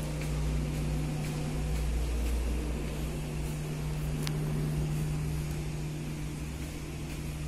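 Steady low hum with faint footsteps on tiled stairs, about one step a second.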